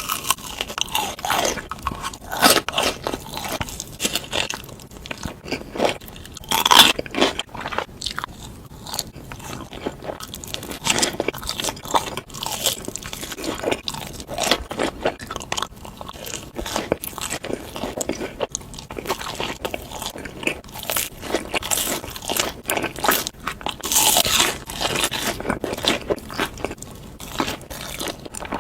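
Close-up eating sounds: crispy Korean fried chicken being bitten into and chewed, with repeated irregular crunches of the fried coating.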